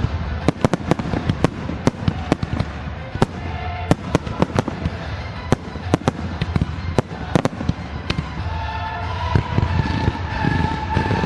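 Fireworks display: a rapid run of sharp bangs from bursting shells, several a second, thinning out after about eight seconds. Music with a steady low bass plays underneath and comes forward as the bangs thin.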